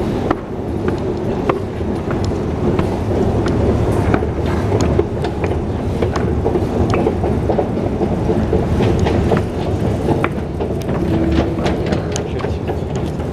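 Metro escalator running: a steady low mechanical rumble with frequent sharp clicks and clacks as the steps pass.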